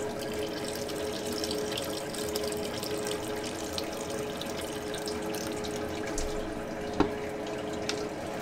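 Sugary pumpkin juice trickling in a thin stream off a baking tray into the mash in a Grainfather mash tun, over a steady hum. A single sharp knock comes about seven seconds in.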